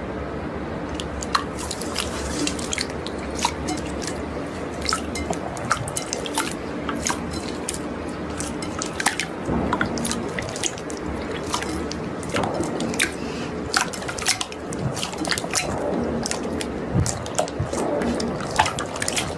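Slime being handled, giving many small, sharp wet pops and clicks at an irregular pace over a low steady hum.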